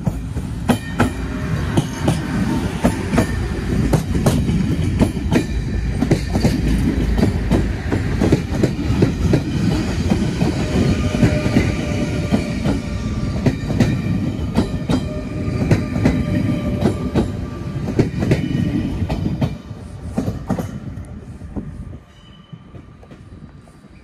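Passenger train running close past at speed: a loud rumble with repeated wheel knocks over the rail joints (clickety-clack) and a sustained horn tone during the pass. The sound drops off sharply about 20 seconds in as the last car goes by.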